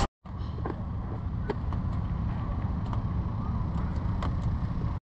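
Steady low outdoor rumble with a few faint clicks; it cuts off suddenly near the end.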